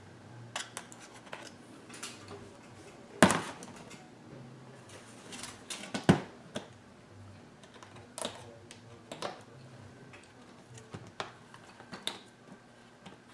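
Scattered clicks and snaps of an original iPad's plastic frame clips letting go as a flathead screwdriver pries its metal back cover open; the sharpest snaps come about three and six seconds in.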